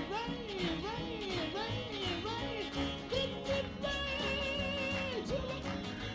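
Live gospel song: a woman singing short, repeated rising-and-falling phrases over backing music, then holding one long note from about three seconds in.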